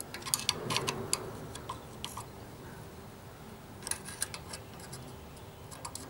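Light, irregular metallic ticks of a screwdriver tip touching the lever and contacts of a refrigeration low-pressure switch, in small clusters, over a faint steady low hum.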